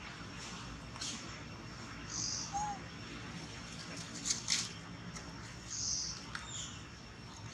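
Short, high-pitched animal calls and chirps a few times over a steady outdoor hiss, with one brief arched call a little over two seconds in and a few sharp clicks.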